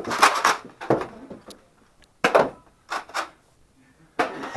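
Irregular short knocks and clatters, several in quick succession, loudest in the first half second.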